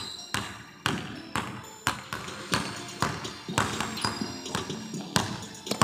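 Basketball dribbled hard on a hardwood gym floor, about two bounces a second. Each bounce echoes around the large, empty hall.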